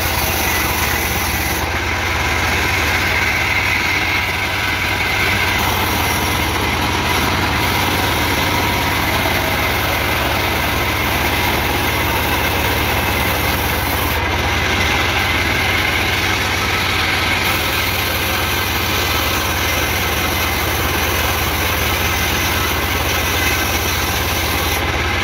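Band sawmill running steadily as a log is fed through the blade, a continuous machine drone with the saw cutting wood.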